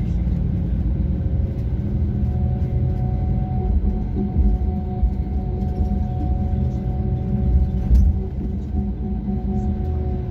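Road vehicle driving over a bridge, its engine and tyre rumble heard from inside the vehicle, with a steady engine drone from about two seconds in.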